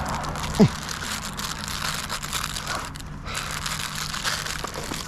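Crinkly packaging of chocolate truffles being handled and opened: a continuous rustling and crackling of plastic and cardboard. There is a short falling squeak about half a second in.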